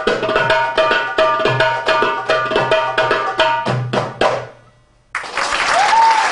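Darbukas (Egyptian goblet drums) played together in fast, dense strokes, closing with a final flurry about four seconds in. After a brief pause, audience applause breaks out just after five seconds, with a rising-and-falling whistle.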